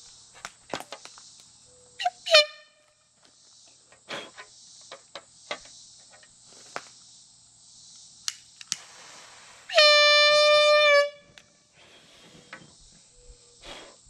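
Handheld can air horn, charged with butane, honking twice: a short blast a couple of seconds in and a longer, steady blast of about a second and a half past the middle. Scattered sharp clicks of a lighter's trigger come between the blasts.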